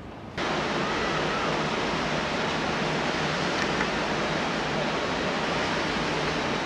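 Steady, even rushing outdoor noise that comes in abruptly less than half a second in and holds at one level.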